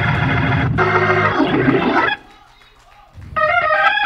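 Church band music with organ and guitar playing a short praise break; the full band cuts off abruptly about two seconds in. After a brief lull, sustained organ chords come in near the end, stepping up in pitch.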